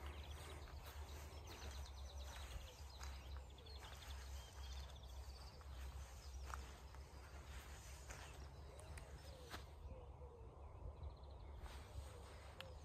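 Quiet open-air ambience: wind rumbling on the microphone, with birds singing in short chirping trills and a few soft ticks.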